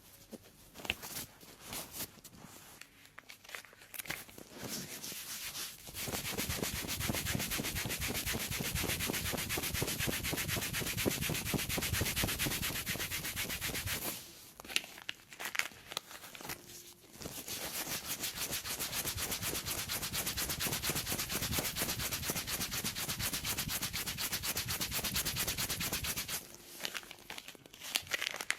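Dead, thickened skin on a foot being scraped in a pedicure, in two long runs of rapid, even scraping of about eight seconds each, with short scattered scrapes and taps before, between and after.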